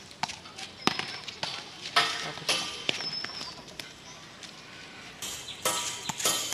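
Outdoor street-cricket sounds: several sharp knocks and taps in the first half, then boys shouting from about five seconds in. A short high whistle, like a bird's chirp, comes twice early on.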